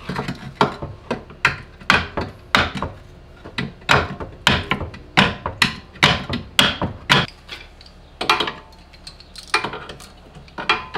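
Hammer striking the steel lower mount of a coilover strut: a run of sharp metallic blows about two to three a second, with a short pause about seven seconds in, as the strut is knocked into line for its lower bolt.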